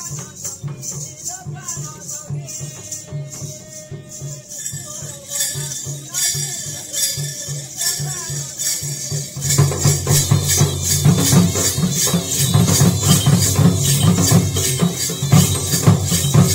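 Danda nacha folk music: a two-headed drum beaten with a stick in a steady rhythm, with jingling metal percussion over it. About two-thirds of the way through it grows louder and denser.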